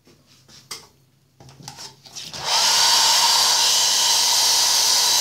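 A handheld hair dryer is switched on about halfway through: its motor spins up with a short rising whine, then it blows loudly and steadily. Before that there are a few faint handling clicks.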